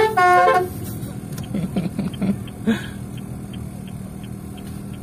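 A car's telolet musical horn playing its last held notes, stepping in pitch, and cutting off under a second in. After that, a lower steady vehicle background with a few faint voices.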